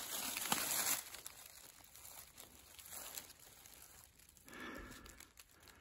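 Dry fallen leaves rustling and crinkling as someone shifts about in the leaf litter, loudest in the first second and faint after that.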